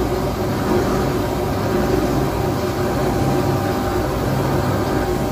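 Jewellery CNC engraving machine running steadily as its spindle-mounted cutter engraves grooves into a gold bangle tube on the rotary axis; a constant mechanical hum with a thin held tone.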